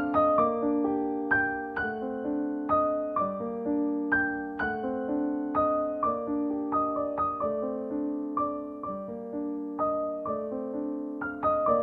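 Piano music: a melody of struck notes, about two a second, over held lower notes.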